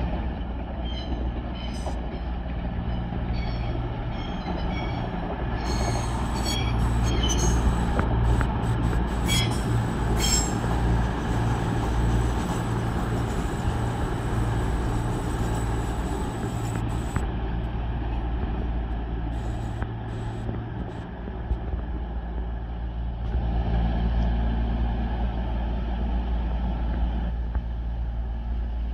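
CrossCountry Class 220 Voyager diesel-electric multiple unit pulling into a station platform. Its underfloor diesel engines give a steady low hum, and short high-pitched brake and wheel squeals come and go over roughly the first ten seconds.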